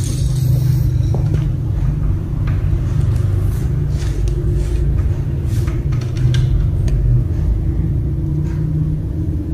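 A steady low rumble and hum with a few faint light ticks on top.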